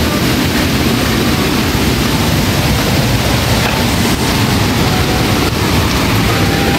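Water pouring from a dam swollen by the previous evening's rain: a loud, steady rush of water.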